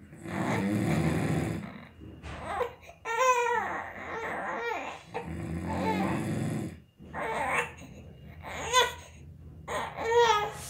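A man snoring, two long rasping snores, with a baby crying in high wavering whimpers between and after them; the baby's cries are the loudest sounds.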